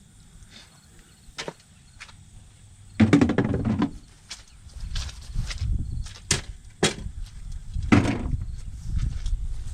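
Standing water being bailed out by hand: a series of scoops, splashes and knocks, the loudest splash about three seconds in and another near eight seconds.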